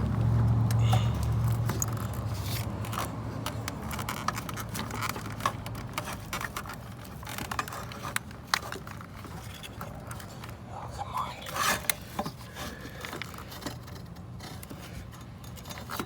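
Irregular clicks, rattles and scrapes of plastic fittings and a wiring harness being handled and pushed back into place, under a low hum that fades away over the first few seconds.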